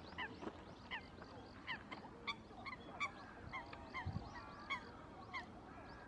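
A flock of birds calling together: short honking notes, each dropping in pitch, repeated several times a second and overlapping from more than one bird.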